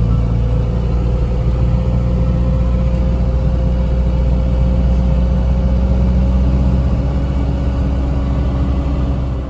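Unimog truck under way: a steady low engine drone with a thin whine that rises slowly in pitch.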